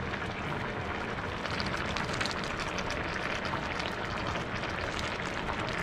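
Paella broth simmering in a wide pan, a steady bubbling with many small crackling pops.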